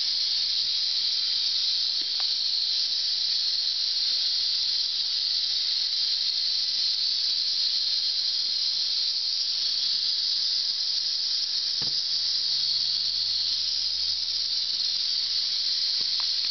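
Western diamondback rattlesnake rattling its tail: a steady, unbroken high-pitched buzz, the snake's defensive warning. A few faint knocks are heard over it.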